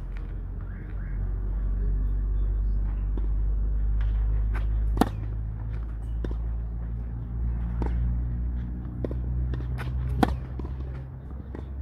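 Two sharp knocks of a tennis ball, about five seconds in and again about ten seconds in, with a few fainter taps, over a steady low rumble.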